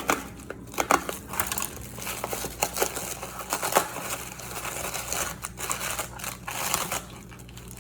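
Packing wrap being crinkled and pulled off a wrapped crystal as it is unwrapped: an irregular run of rustles and sharp crackles.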